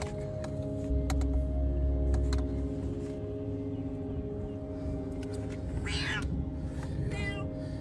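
A cat stranded in floodwater, clinging to a half-submerged car door, meowing twice near the end.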